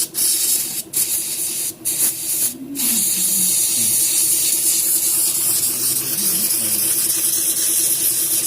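Electric fuel pump running and spraying fuel out in a strong, steady hiss over a pulsing motor hum. It cuts out briefly a few times in the first three seconds. This is a flow and pressure test after the pump's clogged intake strainer was cleaned.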